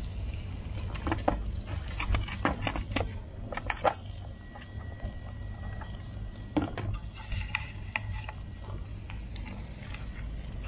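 Light clicks and clatter of plastic food containers and plates being handled, a quick cluster in the first few seconds and a single louder click later, over a steady low rumble.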